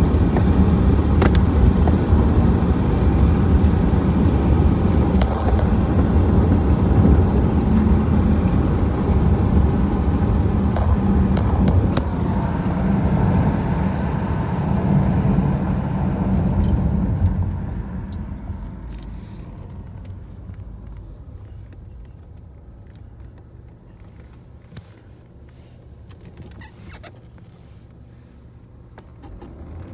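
A BMW car driving, heard from inside the cabin: steady engine and road rumble for the first half or so, falling away quickly about two-thirds of the way through as the car slows, then quiet running with a few faint clicks before the sound builds again right at the end.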